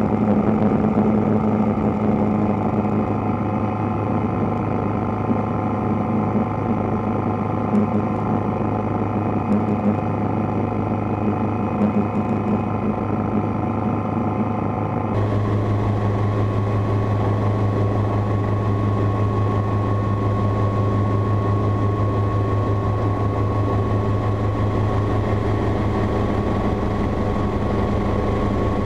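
Light piston helicopter running steadily close over the runway: engine and rotor drone with a strong low hum. About halfway through the sound turns heavier and more even, with a thin steady whine on top.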